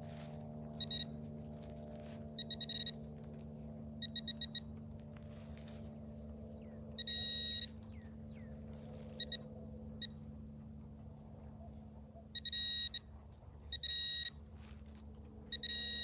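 Fisher F-Pulse handheld pinpointer beeping as it is probed over a buried metal target in the soil. It gives short chirps and quick pulse trains, then solid half-second tones, several times. A faint steady low hum runs underneath.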